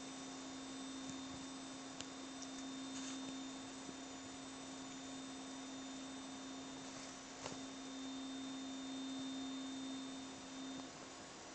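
A steady low hum-like tone with a fainter high whine above it, stopping near the end, with a few faint clicks along the way.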